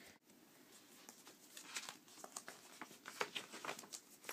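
Faint rustling, light scrapes and small taps of a cardboard vinyl record jacket and its sleeves being handled and slid around.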